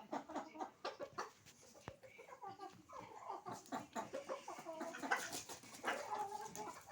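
Chickens clucking: a steady run of short, repeated calls, several overlapping.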